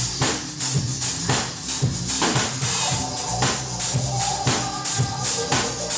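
Live band playing an instrumental passage: a drum kit keeping a steady beat with cymbals, over electric guitar and synth keyboard. Sustained melodic notes come in about halfway through.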